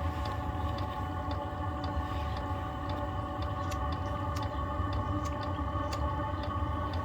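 Diesel heater in its start-up phase: the fan runs with a steady whine while the fuel dosing pump ticks about twice a second, over a low rumble.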